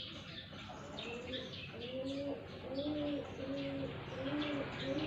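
A bird coos in a steady run of short, low, arching notes, starting about a second in, while small birds chirp high above.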